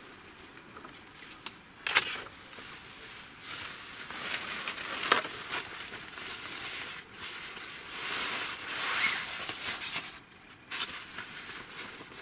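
Rustling of a nylon backpack being handled and unpacked, with straw crackling underneath. Two sharp clicks stand out, about two seconds in and again about five seconds in.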